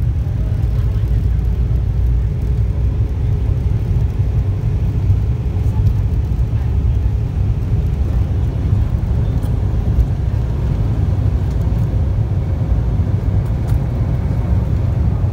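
Airliner jet engines at takeoff thrust, with the wheels rumbling along the runway, heard inside the passenger cabin as a loud, steady, low rumble.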